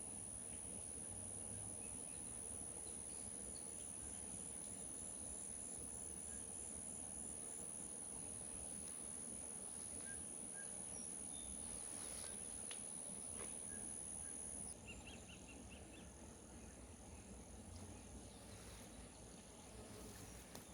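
Insects calling: a steady, very high-pitched buzz with a faster pulsing trill beneath it. The buzz cuts off abruptly about fifteen seconds in. A few short chirps follow.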